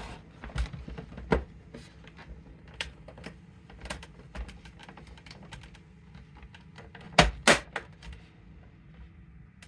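Plastic cover halves of a Nespresso coffee machine being handled and pressed together: a run of light clicks and knocks, with a louder snap about a second in and two more close together a little after seven seconds.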